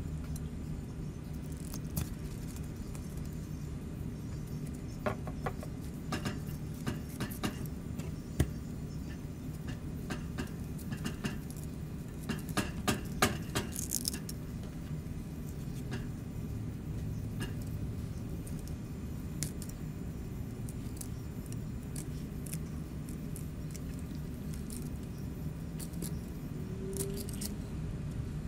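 Fillet knife cutting a snapper on a plastic cutting board: scattered small clicks, scrapes and crunches of the blade through skin, bone and board, with a busier cluster about halfway through, over a steady low hum.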